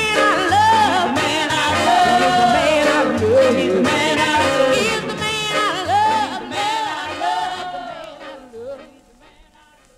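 R&B single by a female vocal group singing with an orchestra over a steady bass line, fading out over its last few seconds as the song ends.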